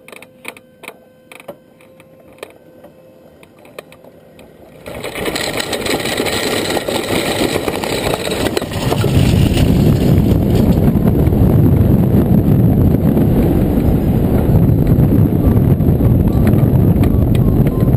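Wind rushing over the microphone of a hang glider as it picks up speed for launch and climbs away: a few light clicks and rattles at first, then from about five seconds in a steady rush that grows louder and heavier, buffeting strongly from about nine seconds on.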